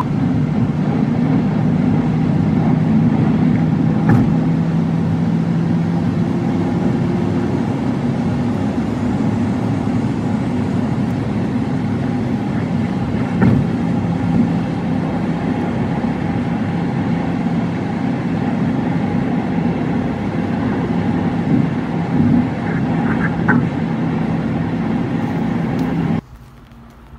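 Steady road and engine noise of a car driving at highway speed, heard from inside the cabin. The sound stops abruptly near the end.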